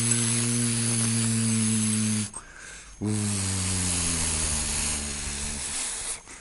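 Electronic sound effect from a toy spaceship: a steady low hum with a hiss over it. It cuts off about two seconds in, starts again after a short gap with its pitch slowly sinking, and stops near the end.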